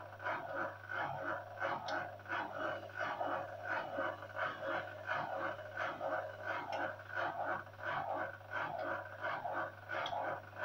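Drain pump of a Zanussi ZTI 823 washing machine chugging during a fast spin program: a steady low hum under a rhythmic gulping pulse of about two and a half beats a second.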